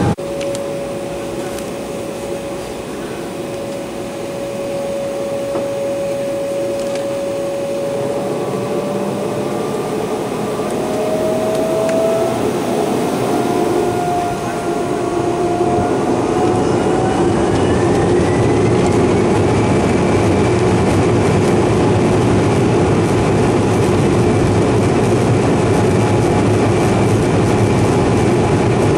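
Embraer 195's General Electric CF34-10E turbofan engines spooling up to takeoff thrust, heard from the cabin over the wing. A steady whine starts to climb about eight seconds in and keeps rising in pitch and loudness until about twenty seconds in. It then holds at a high steady pitch over a loud rushing rumble as the takeoff roll gets under way.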